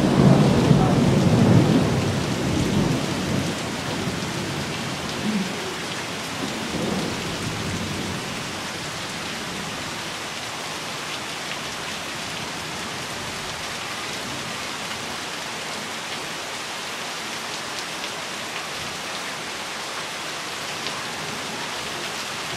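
Thunder rolling loudly at the start and dying away over several seconds, then steady rain, with water pouring off the roof edge.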